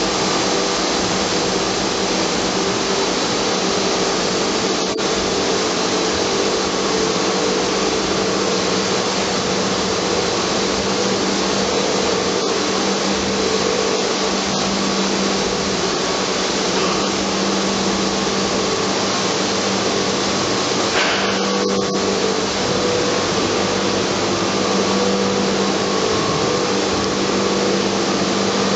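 Electric centrifugal water pumps of an aquarium life support filtration system running, a steady mechanical drone with a low hum. A brief rattle about 21 seconds in.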